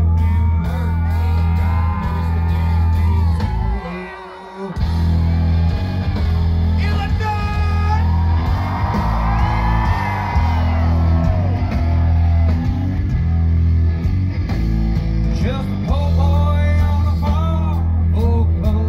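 Live country-rap concert: a male vocalist singing and rapping into a microphone over a loud, bass-heavy backing track played by a DJ. The bass cuts out for a moment about four seconds in, then comes straight back.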